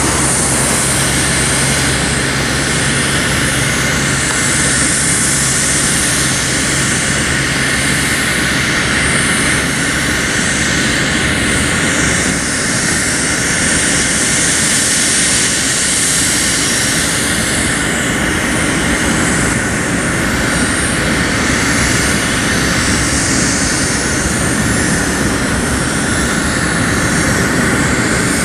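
Cessna Citation Bravo's twin Pratt & Whitney Canada PW530A turbofans idling steadily, a high whine over a broad rush, while the jet holds before takeoff.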